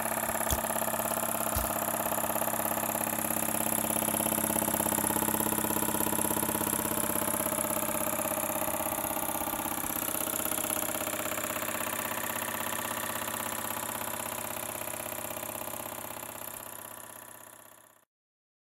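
PM Research No. 2 model steam engine running steadily on compressed air. Two short knocks come about half a second and a second and a half in. It fades over the last few seconds and stops.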